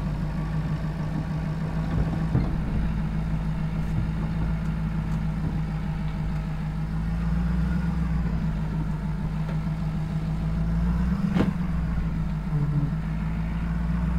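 Pickup truck engine running steadily at low revs, pulling under load with a garden shed dragged behind it on chains and swelling a little now and then. Two short sharp knocks come about two seconds in and again near the end.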